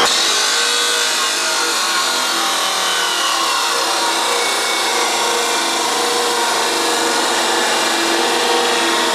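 Abrasive chop saw cutting through a steel T5 transmission shifter stick: a steady, loud grinding whine of the cut-off wheel biting into the metal.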